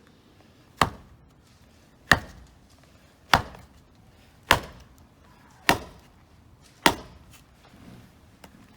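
Husqvarna hatchet chopping into cedar firewood: six sharp blows, about one every 1.2 seconds.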